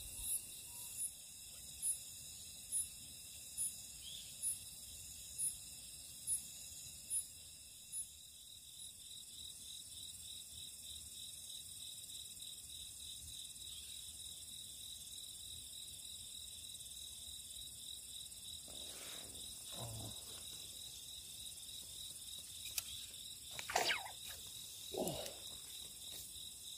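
Crickets and other insects trilling steadily in a high-pitched chorus, with one insect chirping a little more than once a second for the first eight seconds or so. A few brief soft rustles or knocks come near the end.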